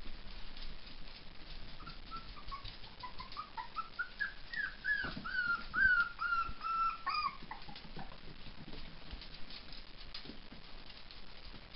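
Miniature dachshund puppies whimpering: a string of short, high whines, each dropping in pitch, several a second, starting about two seconds in and stopping about two seconds before the end.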